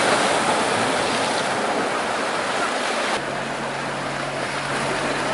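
Waves and wind buffeting the microphone, switching abruptly about three seconds in to the steady low drone of the fishing boat's engine with water churning in its propeller wash as it tows the half-sunken yacht.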